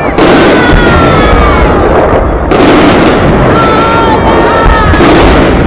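Fireworks bursting in quick succession, loud and continuous, with sudden jumps in the din about every two to three seconds. High whistling tones slide slowly down in pitch over it.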